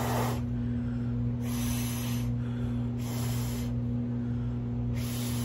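Short puffs of breath blown through a plastic straw onto wet alcohol ink, four puffs about a second and a half apart, over a steady low hum from the cup turner's motor.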